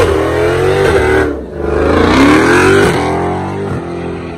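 Drag car's engine revving hard through a burnout on drag slicks. The revs dip briefly about a second and a half in, then climb again as the car pulls away down the strip, and the sound fades near the end.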